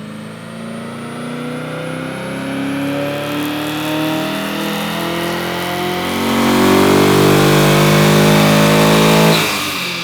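Chevrolet Camaro engine, fitted with a FAST intake manifold, making a pull on a chassis dyno: the engine note climbs steadily in pitch, grows louder about six seconds in, then cuts off suddenly near the end.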